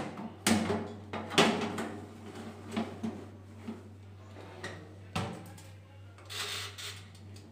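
Metal baking tray pushed into a Pensonic toaster oven, clattering several times against the wire rack, the loudest knock about a second and a half in; about five seconds in, the oven's door is swung shut with a clunk.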